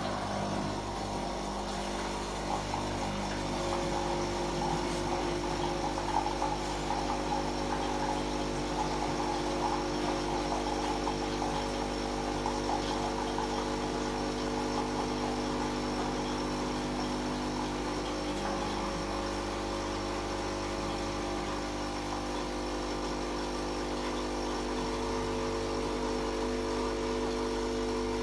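Electric kitchen appliance heating the water for the tea: a steady electrical hum and whir.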